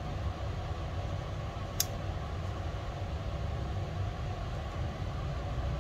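Steady low room hum with a single sharp click about two seconds in, from a Sony ZV-1 compact camera being handled.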